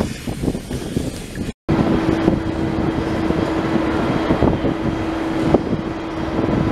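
A steam locomotive passing close with steam hissing, then a brief dropout, then wind buffeting the microphone and a steady low hum while a steam train approaches in the distance.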